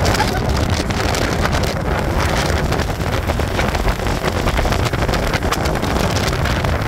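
Wind buffeting the microphone over a steady low vehicle rumble, as if riding in the open air.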